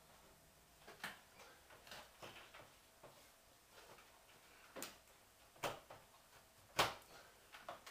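Scattered sharp clicks and knocks as an LED replacement tube is twisted and seated into the lampholders of a ceiling fluorescent fitting. The loudest click comes about seven seconds in.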